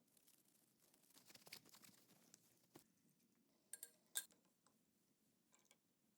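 Near silence, broken by a few faint short clicks and light scratching.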